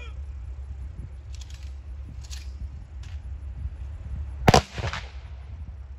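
Rifle volley from a funeral firing party: one sharp crack of the rifles going off together about four and a half seconds in, echoing briefly. It is one volley of the three-volley salute fired at a military funeral.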